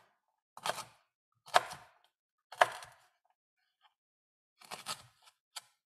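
Chef's knife chopping fresh ginger root into small cubes on a cutting board: three sharp chops about a second apart, then a quicker run of lighter cuts near the end.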